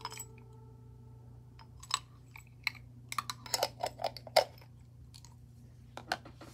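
Small glass jar being handled with plastic doll parts inside and its screw-on lid closed: a series of light clicks and clinks, thickest about three to four and a half seconds in, with two more near the end as the jar is set down.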